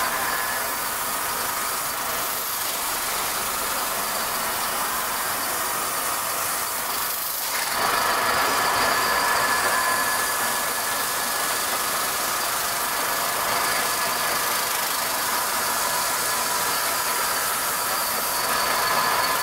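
YL-1200G automatic turning sander running: a steady sanding hiss with faint steady whining tones over it. It dips briefly about seven seconds in, then comes back a little louder.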